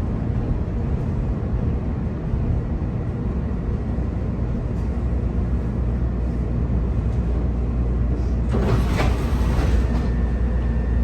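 Chicago 'L' rail car's steady low rumble and hum while standing at a station, with a short burst of hissing noise near the end.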